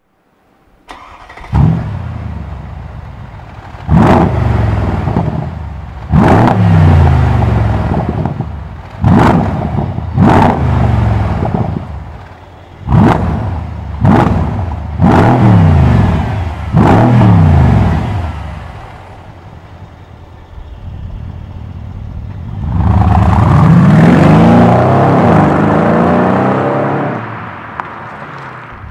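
Mercedes W212 E63 AMG's V8 running through a MEC Design 'Earthquake' aftermarket exhaust, the quieter of its two versions. It starts about a second and a half in, flaring and then settling to idle. It is then blipped hard about nine times in quick succession, each rev rising sharply and dying back. After a short idle it pulls away under acceleration for several seconds, about three-quarters of the way through.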